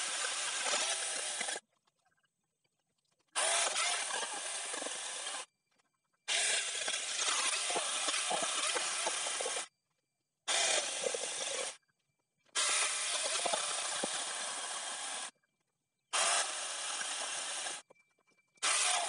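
IBELL angle grinder fitted with a chainsaw attachment, cutting through a log. It comes in about seven bursts of one to three seconds, each starting and stopping abruptly, with short silent gaps between.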